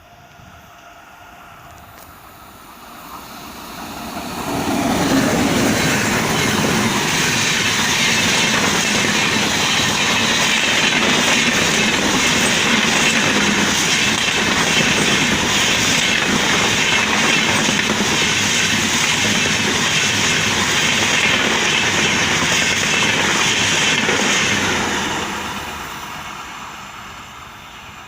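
Express passenger train hauled by a WAP7 electric locomotive passing at speed. Rumble and wheel clatter build quickly about four seconds in, stay loud for some twenty seconds as the coaches go by, then fade away near the end.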